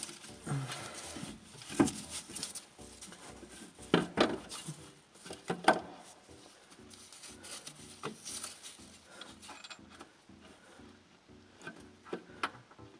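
Metal clunks and scraping as an alternator is worked by hand into its mounting in a car's engine bay, with several sharp knocks, the loudest three close together around four to six seconds in.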